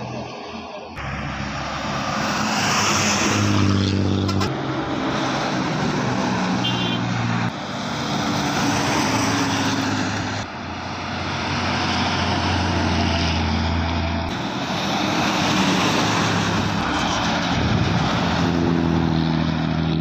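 Coach buses driving past at speed on a highway: a steady low engine drone under a loud rush of road and wind noise. The sound changes abruptly several times, the engine pitch and noise shifting from one passing bus to the next.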